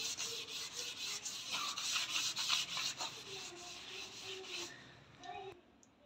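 A cloth rubbed back and forth over a dishwasher's metal control panel in quick, repeated wiping strokes, stopping about five seconds in.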